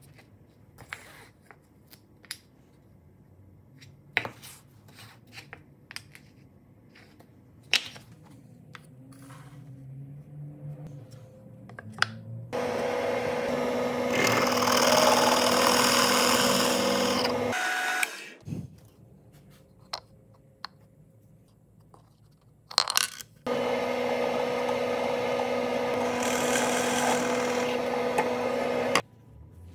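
Power tool run in two bursts of about five seconds each, a steady loud whine with a hum under it, separated and preceded by scattered clicks and knocks of tool and workpiece handling.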